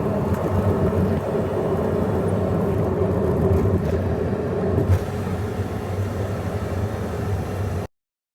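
A vehicle engine runs steadily on the way up a mountain road, with a brief knock about five seconds in. The sound cuts off abruptly a little before the end.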